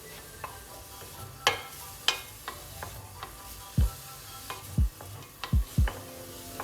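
Kitchen knife chopping on a cutting board: about a dozen irregular chops and knocks, a few of them deeper thuds in the second half.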